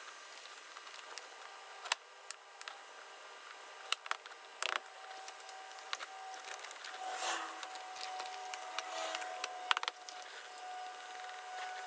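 Plastic interior trim panels of a Lexus RX350 being fitted back under the dashboard: scattered sharp clicks and knocks as the panels and their clips are pushed into place, with a stretch of rubbing and rustling about halfway through.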